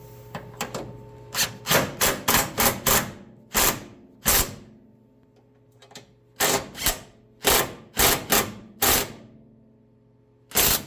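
Hammer tapping on metal, about fifteen sharp strikes in two quick bursts with a pause between them, each with a short ring. The taps are settling a part of the hood-hinge fitting into place.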